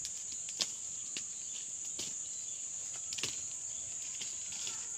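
Steady high-pitched drone of insects, with a handful of sharp cracks from the wood fire and its firewood as it is tended.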